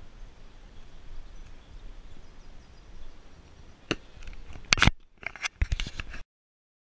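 Low wind rumble on the microphone of an action camera being handled, then a cluster of sharp knocks and clicks from about four seconds in as the camera is moved and set down. The sound then cuts out to silence.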